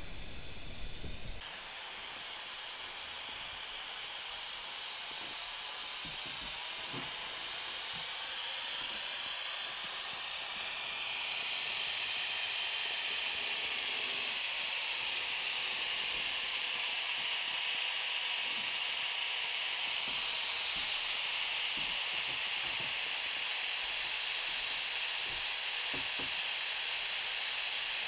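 A steady hiss that grows louder about ten seconds in.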